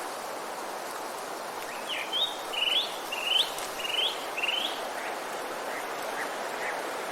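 Forest ambience: a songbird sings a run of five repeated, sweeping notes, about two a second, then gives a few faint short calls, over a steady background hiss.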